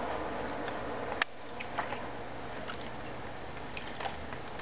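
Pages of a spiral-bound paper booklet being turned by hand: a steady hiss stops abruptly with one sharp paper snap about a second in, followed by light scattered ticks and rustles of paper.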